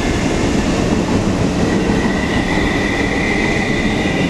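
Train running along the track, a steady rolling rumble with a high whine over it.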